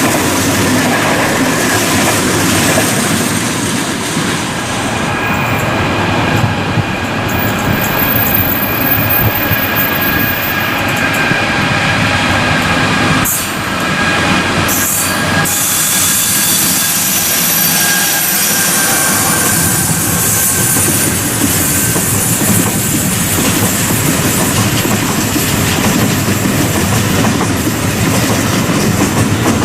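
Freight train wagons rolling past close by, wheels running on the rails with a steady high squeal over the rumble.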